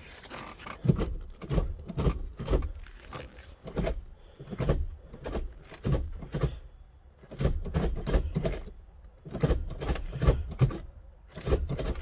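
Acura Integra's manual gear lever being worked back and forth through the gears by its new heavy shift knob: a series of clunks and clicks, about one to two a second, as it drops into and out of the gates.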